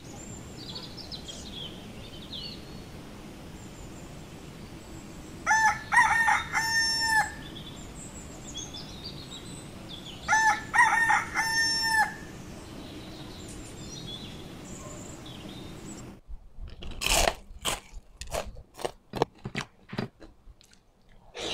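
A rooster crowing twice, each crow about two seconds long, over a steady outdoor hiss with small birds chirping. About three-quarters of the way in the sound changes to close-up eating: sharp crisp bites and chewing.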